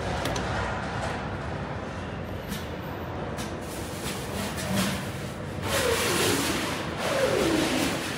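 ZB3250LY semi-automatic solder paste screen printer running its cycle after its button is pressed: steady mechanical whirring of its drive. In the second half it gets louder, with two whines that fall in pitch, each about a second long.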